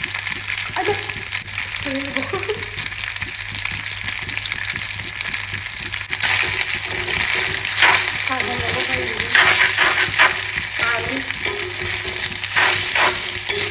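Food sizzling and frying in a hot pan while it is stirred, with a steady crackling hiss that grows louder and busier about halfway through.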